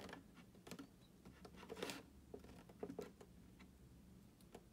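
Faint, scattered scratches and taps of tape being cut off the top of a cardboard toy box.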